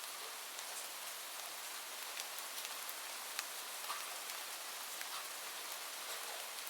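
Steady rain falling, an even hiss with scattered sharp ticks of individual drops hitting a surface.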